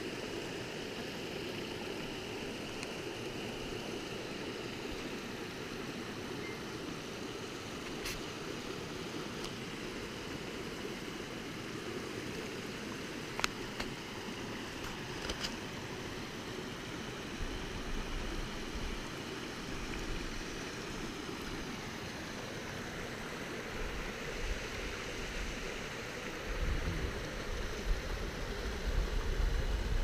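Steady rush of whitewater from a rain-swollen creek, with a few sharp clicks partway through and a low rumble that grows louder near the end.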